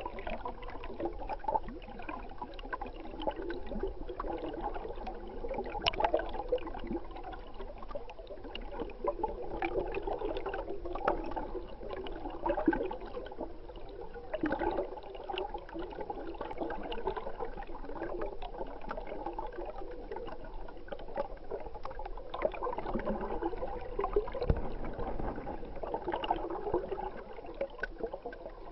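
Stream water heard through a submerged camera: a steady, muffled gurgling wash with scattered small clicks and knocks.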